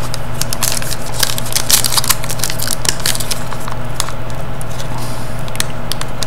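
Crackling and crinkling of a foil trading-card pack being cut open, a run of short sharp crackles over a steady low hum.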